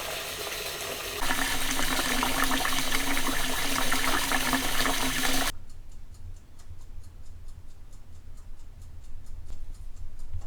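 Water running steadily, as from a tap, growing louder about a second in and then cutting off abruptly about halfway through. After that there is only a quiet low hum with faint, regular ticking.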